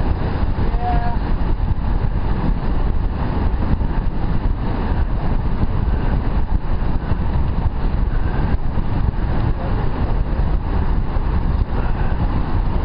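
Steady wind rush over a helmet-mounted camera's microphone on a road bike moving at speed in a group, a deep, even noise with no breaks.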